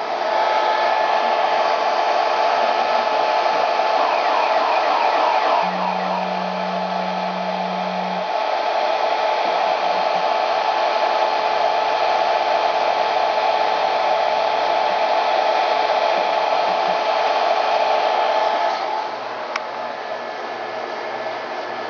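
Steady whirring machine noise beside a ShopBot CNC router as its Z axis runs the bit down onto a metal touch plate to zero the height. A short low motor tone comes about six seconds in and a fainter, lower one near twelve seconds, as the axis moves; the whir drops off noticeably near the end.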